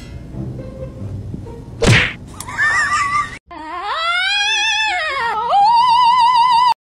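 A sharp smack about two seconds in, followed by a short high squeal. Then a cat gives one long yowl that rises, dips and ends in a wavering, trembling note.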